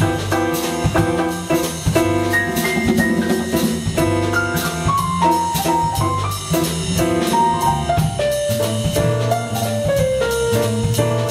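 Small jazz combo playing an instrumental, with the piano carrying a single-note melodic line over electric bass and drum kit while the tenor saxophone rests.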